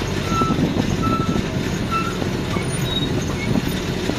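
Road-going tourist land train driving along, heard from aboard: a steady engine rumble with the rattling of its wagons, and a short high squeak recurring about once every second.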